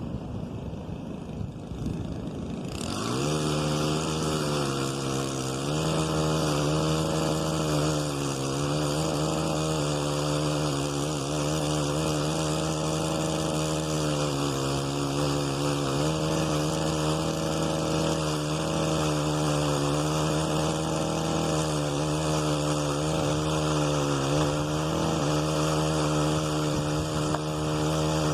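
Powered telescoping pole saw running. It comes up to speed about three seconds in, then runs on with its pitch dipping and recovering again and again while cutting overgrown tree limbs.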